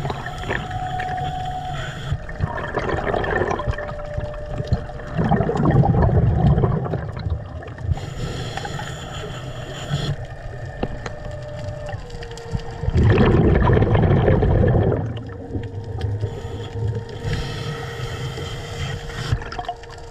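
Underwater ambience with the steady drone of a boat motor carried through the water, its pitch stepping lower a few times. Two loud rushes of water noise swell up and die away, about five seconds in and again about thirteen seconds in.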